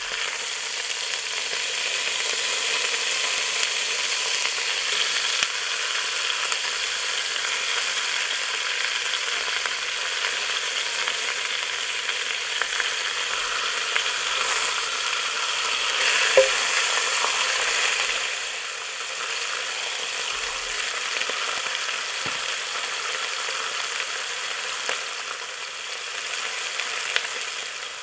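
Bone-in lamb pieces sizzling steadily as they sear in a little oil in a stainless stockpot. There are a few sharp clicks as metal tongs turn the meat against the pot, the loudest about halfway through.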